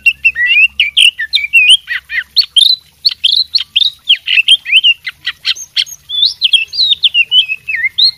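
Oriental magpie-robin (kacer) singing loudly and without a break: a rapid, varied run of whistled phrases and sharp down-slurred notes, packed with learned phrases taken from other birds.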